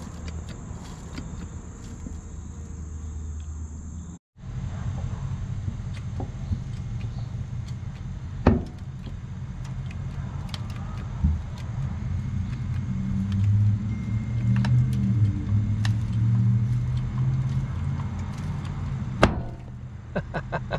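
Hydraulic porta power pushing out the dented sheet-metal nose of a VW bus, with a few sharp metal knocks and pops, two of them louder, over a steady low hum.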